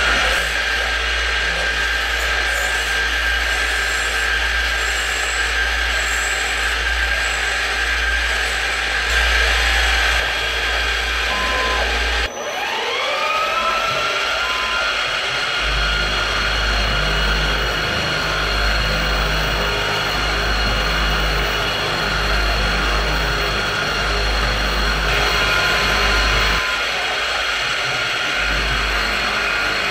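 PM-727M CNC milling machine running, its spindle whining steadily as it cuts a metal block under mist coolant spray. About twelve seconds in the sound breaks off and the spindle's whine rises and levels off as it spins back up, then cutting resumes.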